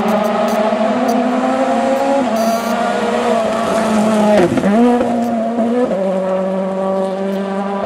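Ford Fiesta RS WRC rally car's engine running hard at high revs as it comes through on gravel. About halfway through, the engine note dips sharply and climbs straight back, then carries on steady as the car pulls away.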